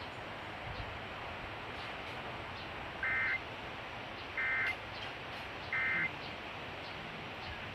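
Emergency Alert System end-of-message code: three identical short bursts of warbling digital data tones, a little over a second apart, over a steady hiss. The three bursts signal the end of the alert.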